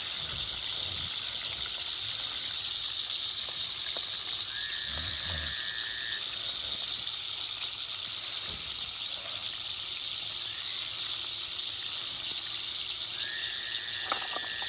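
Outdoor animal chorus: a steady high-pitched drone, with a held whistle-like call about every four to six seconds, each starting with a short upward slide.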